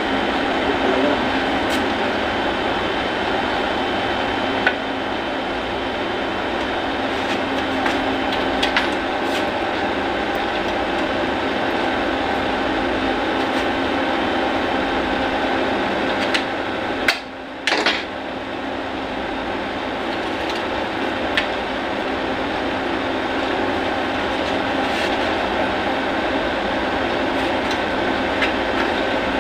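Steady machine whirring with a faint high tone running through it, and occasional light clicks and taps of tools against metal; the noise drops out briefly about seventeen seconds in.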